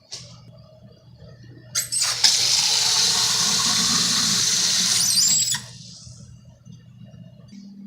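Water running hard from a tap into a pot for about three and a half seconds, starting about two seconds in and cut off sharply, over a low steady hum that stops near the end.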